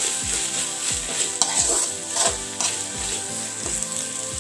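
Vegetables and ginger-garlic paste sizzling in a hot metal kadai over a high flame, stir-fried with a slotted metal spatula that scrapes and taps the pan about two to three times a second.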